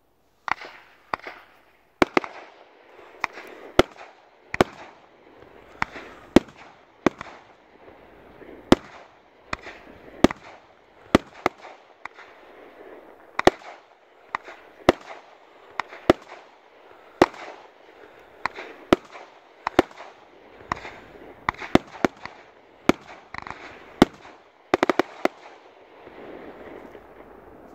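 Ghengis Category 4 firework cake firing: a run of some thirty-odd sharp shots, roughly one or two a second, over a steady crackling hiss. It starts about half a second in and ends with a quick cluster of shots followed by a fading hiss.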